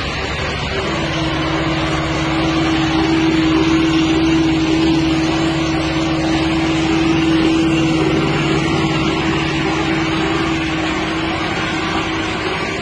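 Machinery running steadily: a constant mechanical din with a steady hum that settles in about a second in.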